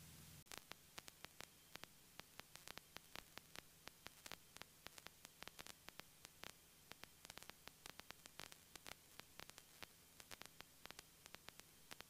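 Near silence with faint, irregular crackling clicks, several a second, like static on a cockpit audio feed. A low hum cuts out about half a second in.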